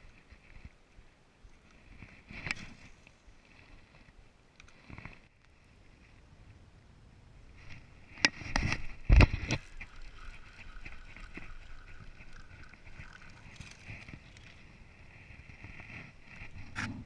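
Spinning rod and reel in use as a largemouth bass is hooked and reeled in. A cluster of loud knocks and rubbing comes about eight seconds in, followed by a faint steady whine of the reel being cranked.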